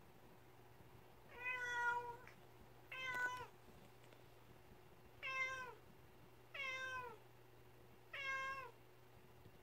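Domestic cat meowing five times, about a second or a second and a half apart, each meow dropping in pitch at the end: plaintive calls for its owner's attention, asking to be played with.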